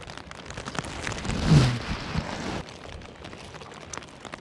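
Raindrops ticking on a plastic rain poncho, with a brief louder rustling rush about a second and a half in.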